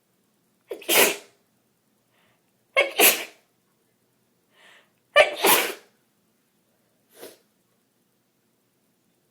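A person sneezing three times in a rapid fit, about two seconds apart, with a short, much fainter sound near the end.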